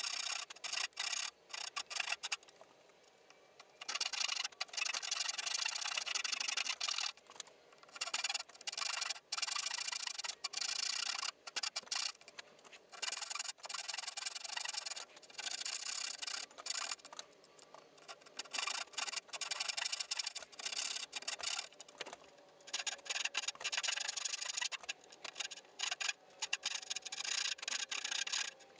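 Backsaw cutting the angled pin cuts of a dovetail joint in a pine board, in runs of rapid back-and-forth strokes a few seconds long with short pauses between cuts.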